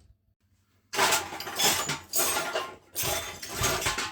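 Hard objects clattering and clinking on a workbench, in several dense bursts starting about a second in, as tools and parts are handled to take an angle grinder apart.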